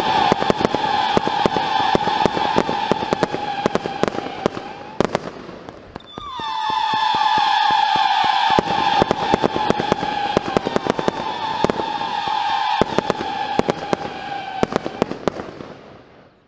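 X-Cite Viking Attack fireworks cake firing rapid volleys of whistling shots: a loud steady whistle over many sharp bangs and cracks. The first volley dies away about five seconds in. A second one starts about a second later and runs until about fifteen seconds, then fades out.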